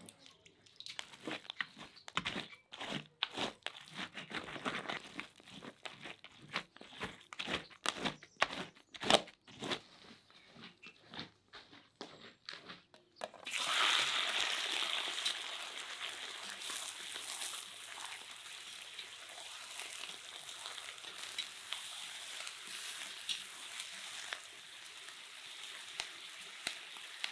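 Hot oil in a cauldron crackling and popping irregularly. About halfway through, chunks of meat go into the oil and it breaks at once into a loud, steady sizzle of frying that slowly settles.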